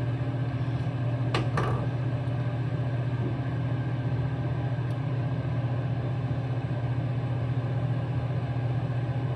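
Steady low mechanical hum of a fan running, with a brief light handling sound about a second and a half in.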